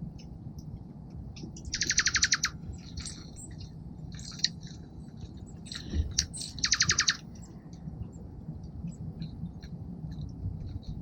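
Small songbirds at a feeder calling: scattered short chips, with two loud, harsh, rapidly pulsed buzzy calls about two seconds in and again past the middle, over a low steady background rumble.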